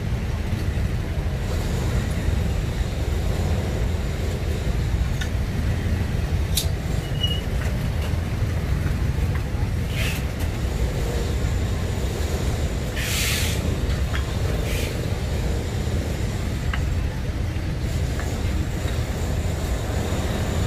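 Street traffic: a steady low rumble of passing motorbikes and vehicles, with a short hiss about thirteen seconds in and a few faint clicks.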